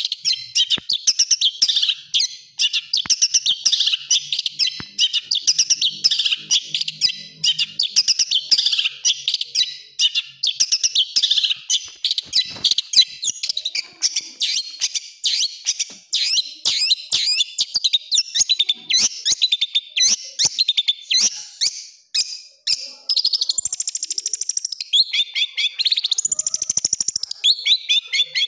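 Long-tailed shrike (cendet) singing a fast, harsh song of rapid repeated notes, many a second: the rough 'tembakan' bursts that bird keepers play to train a captive cendet. In the last few seconds the phrases change to higher, longer notes and falling runs.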